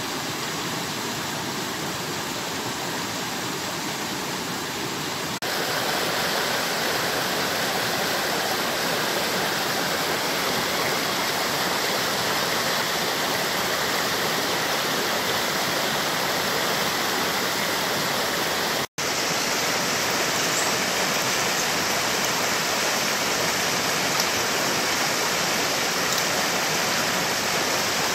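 Steady rush of flowing water from a jungle stream. It gets a little louder about five seconds in and cuts out for an instant about two-thirds of the way through.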